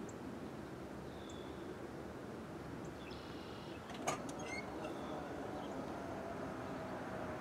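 Safetran crossing gate mechanisms releasing with a sharp click about four seconds in as the gate arms start to rise, followed by a faint steady hum from the gate motors over a low outdoor rumble. A few faint bird chirps come just after the click.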